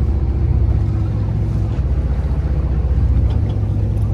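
Boat engine idling: a steady low rumble with a fast, even pulse.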